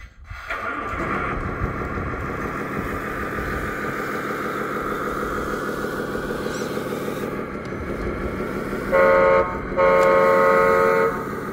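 Simulated truck diesel engine sound from a 1/14 RC Mercedes Zetros's sound module, running steadily as the truck pulls its loaded trailer. About nine seconds in, the horn sounds twice: a short toot, then a longer blast.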